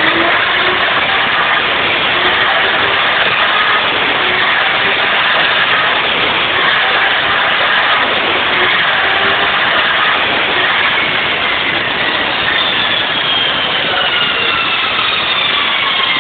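Bandsaw blade sharpening machine running: a loud, steady mechanical drone of the motor and grinding wheel, with a few faint falling whines in the last few seconds.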